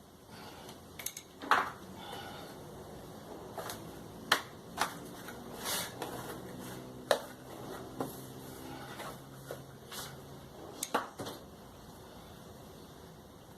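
Tools and metal parts being handled while working on a tumble dryer: a dozen or so sharp, scattered clicks and knocks, the loudest about a second and a half in.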